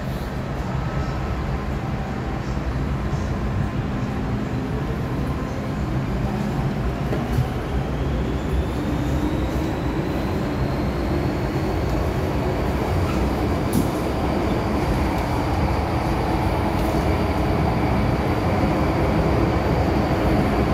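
MTR M-Train electric multiple unit running on the Kwun Tong Line: a steady rumble of wheels and motors that grows slowly louder as the train picks up speed. About a third of the way in, a thin traction-motor whine starts to rise in pitch, then levels off and holds.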